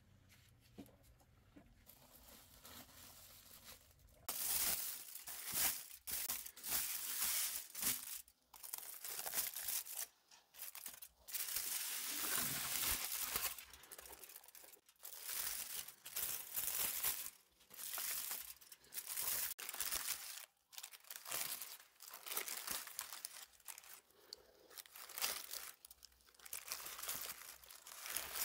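Aluminium foil and butcher paper crinkling and rustling as hands unwrap a foil package of cooked short rib, starting about four seconds in with irregular loud bursts.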